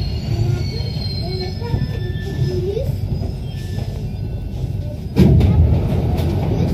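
Rubber-tyred Paris Métro Line 1 train braking into a station and coming to a stop: a low running rumble with thin whining tones that glide in pitch, one rising near the end of the braking. About five seconds in, a sudden louder rumble and clatter sets in.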